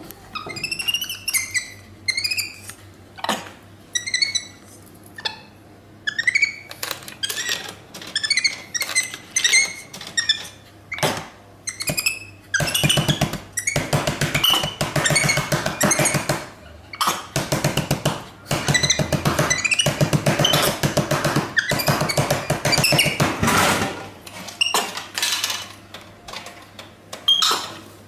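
Short high squeaky chirps that rise and fall in pitch, with scattered clicks and knocks, then a long stretch of rapid rattling clatter in the middle, as a monkey handles a drink vending machine.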